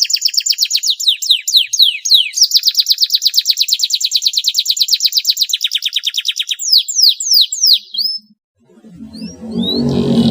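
Domestic canary singing long, fast trills of a dozen or more repeated notes a second, broken by a few slower downward-sweeping notes. The song stops about eight seconds in, and a low, droning, music-like sound comes in near the end.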